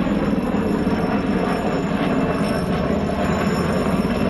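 NH90 helicopter in flight: its main rotor beats in rapid, even pulses over a steady high turbine whine.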